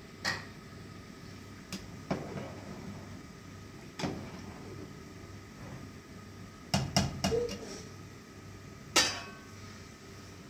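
A series of sharp knocks and clatters at irregular intervals, like things being handled and set down: single knocks early on, a quick run of four about two-thirds through, and the loudest single knock near the end.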